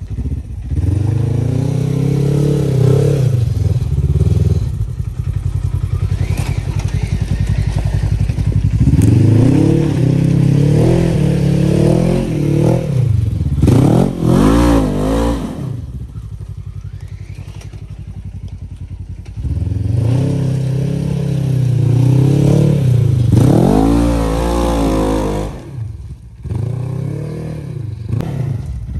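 Side-by-side UTV engine revving in repeated bursts that rise and fall, settling to a quieter, steadier run in the middle, with sharp quick revs about halfway through and again later.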